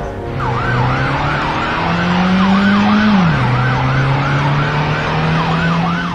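Police car siren wailing in quick, even up-and-down sweeps, a little over two a second. Under it the car's engine climbs in pitch, drops back about three seconds in, then holds steady, with road noise.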